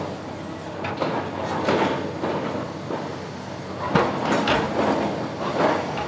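SR235 rotary drilling rig's diesel engine running, with metallic clanks and scraping from its drilling bucket as it is emptied and lowered, and a sharp knock about four seconds in.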